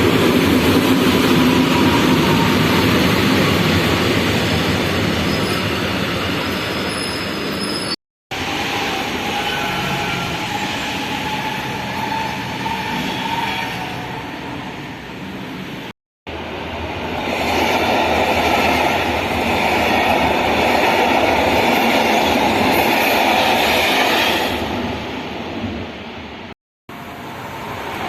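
Passenger trains running past on the tracks with a steady rumble and a faint pitched whine, in three or four short recordings joined by abrupt cuts about 8, 16 and 27 seconds in.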